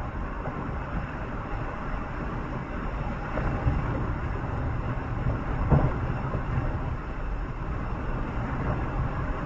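Steady rumble and road or track noise of a moving vehicle heard from inside, with a brief louder knock about six seconds in.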